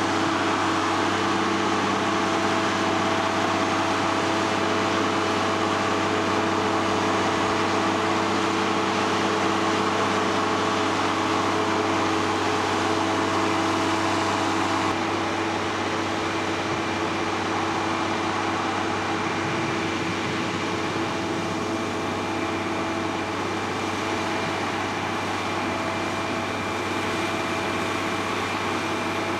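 Sierra RB5000 logger baler's Cummins 5.9-litre six-cylinder diesel running steadily, with a constant hum and mechanical noise. It drops a little in level about halfway through.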